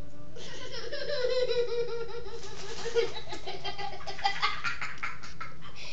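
A young child laughing in high-pitched, drawn-out bursts that break into choppy giggles.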